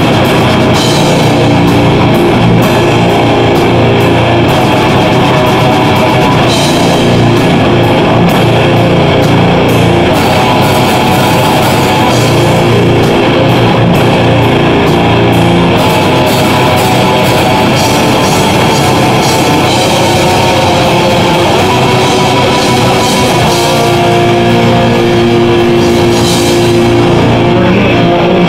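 A live extreme progressive metal band playing loud: distorted electric guitars, bass guitar and a drum kit with crashing cymbals. Near the end the cymbals drop away and the guitars come to the fore.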